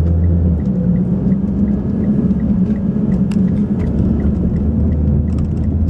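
Car engine and road noise heard from inside the cabin as the car pulls away from a stop and drives on: a steady low rumble with a few faint knocks.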